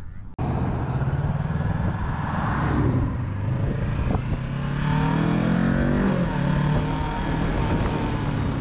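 Sport motorcycle engine running under a rider, heard from the bike with wind noise on the microphone. The engine pitch climbs about halfway through as the bike accelerates.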